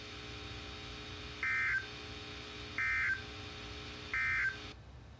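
A NOAA Weather Radio EAS/SAME end-of-message signal: three short, evenly spaced bursts of high data tones, marking the end of the broadcast tone alert test. They play over the receiver's steady low hum, and the transmission cuts off near the end.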